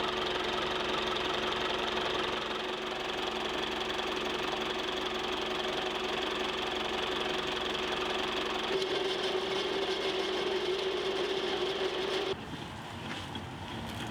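An engine running steadily, its note stepping up a little about nine seconds in; the sound cuts off suddenly near the end, leaving a quieter background.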